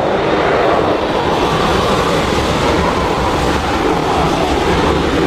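Boeing 737-900ER's CFM56-7B jet engines at take-off thrust, a loud, steady rushing rumble.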